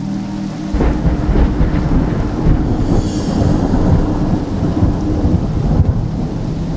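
Thunder: a sudden crack just under a second in, then a long low rumble over a steady hiss of rain.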